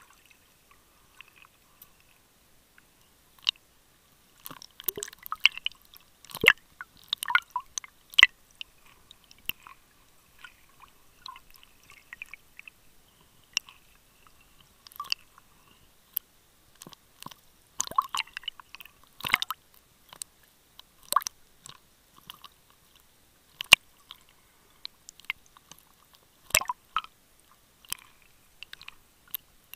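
Irregular sharp clicks and short crackles of water moving against a camera held underwater, sparse at first and busier from about four seconds in.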